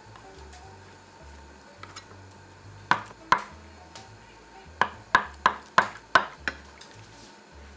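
Chef's knife slicing through a block of tofu and knocking down onto an end-grain wooden cutting board: two knocks about three seconds in, then a run of six evenly spaced knocks at about three a second.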